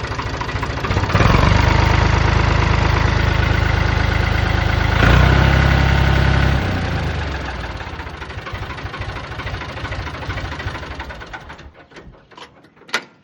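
Ford 4610 tractor's 201-cubic-inch three-cylinder diesel running with a diesel clatter, revved up about a second in, pushed up again around five seconds, then dropping back and dying away near the end. A sharp click comes just before the end.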